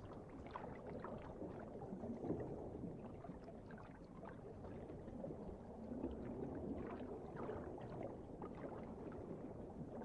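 Faint underwater ambience: a low, even rumble with light scattered crackles and gurgles.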